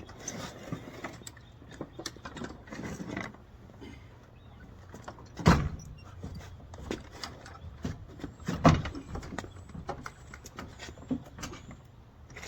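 A run of clicks and knocks with two loud thumps, the first about five and a half seconds in and the second about three seconds later.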